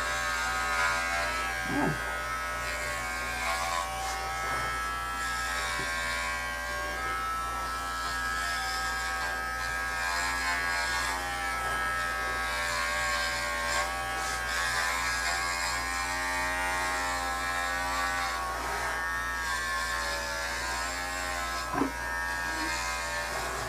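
Cordless electric dog clippers running steadily as they cut through a dog's coat: an even motor hum that wavers slightly in pitch.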